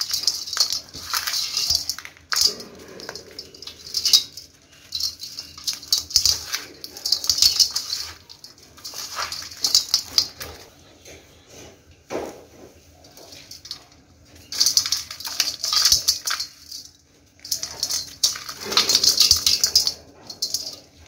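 Dry crumbly soil being crushed by hand, its crumbs and dust falling onto a perforated aluminium plate in repeated crackly, gritty bursts with short pauses between handfuls. About halfway through comes one sharper click.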